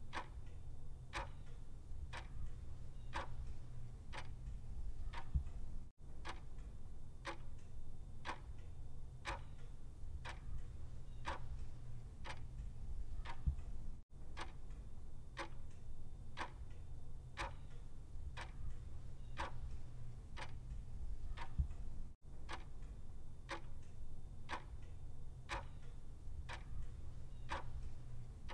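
Clock ticking steadily, about two ticks a second, over a low steady hum. The sound cuts out for an instant about every eight seconds.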